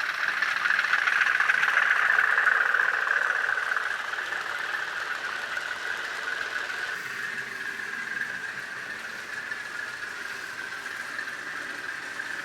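DCC sound decoder in an N gauge model of the LMS 10001 diesel locomotive, playing diesel engine sound through the model's small speaker as it runs. The sound swells over the first few seconds, then settles to a steady run.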